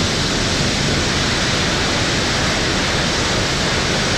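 Pressure-washer spray hissing steadily as the inside of an empty semi-trailer box is washed.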